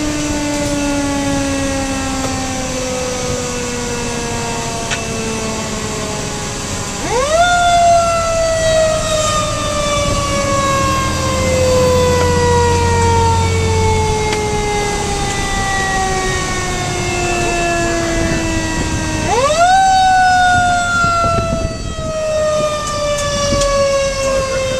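Fire engine siren heard from inside the cab. Twice its pitch sweeps quickly up, and each time it then falls slowly and steadily for many seconds.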